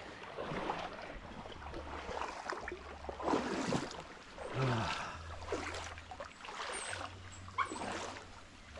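Dogs whining a few times in short, sliding whimpers over a noisy background.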